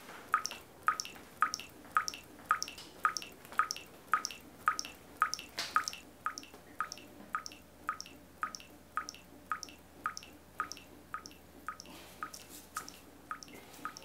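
Water dripping steadily, each drop a small ringing plink, just under two drops a second, growing fainter in the second half.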